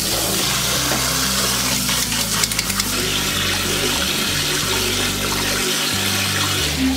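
Cold tap water running hard into a sink onto cooked thin noodles, with splashing as hands rub and rinse the noodles in the cold water.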